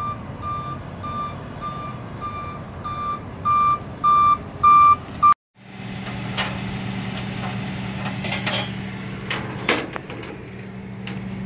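A tow truck's reversing alarm beeps steadily, about two beeps a second, getting louder as it backs in, then cuts off suddenly. After that, a truck engine idles with a steady low hum and a few short metallic clanks.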